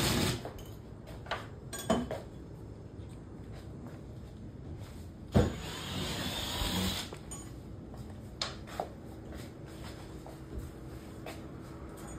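Scattered knocks and clicks of tools and materials being handled, with one louder knock about five seconds in followed by a second and a half of rustling, scraping noise.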